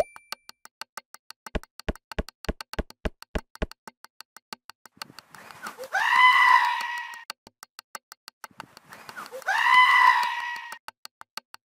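A sheep bleating twice, each bleat about a second and a half long, over a fast, steady ticking of about five clicks a second. A quick run of about eight low thumps comes in the first few seconds.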